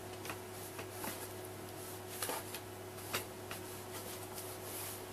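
A cloth wiping a whiteboard clean: a series of short rubbing swipes and light knocks against the board, over a steady low hum.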